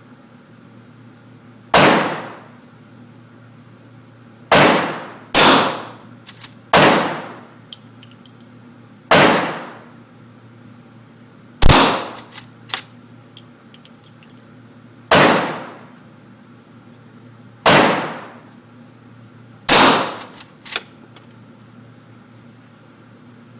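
Henry rifle firing nine single shots, one every one to three seconds, each with a short ringing echo. Fainter metallic clicks follow some of the shots.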